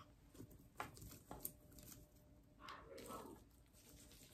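Near silence, with a few faint clicks and rustles of popcorn pieces being picked up and dropped into a metal dish by hand.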